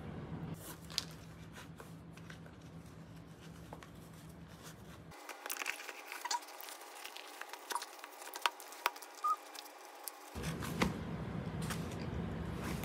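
Faint rustling and light clicks of white leather Nike Cortez sneakers being handled and their laces pulled, over a low steady hum.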